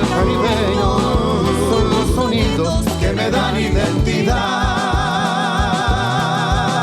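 Folk song music with a bass line; about four seconds in, a long held note with a strong vibrato starts.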